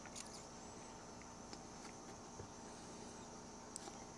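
Faint, scattered clicks and taps of trading cards being handled and shuffled, over a steady background hiss.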